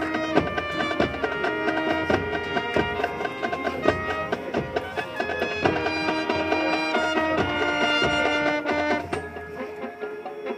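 High school marching band playing, winds holding notes over frequent drum strokes and front-ensemble percussion. Near the end the low end drops out and the music gets softer.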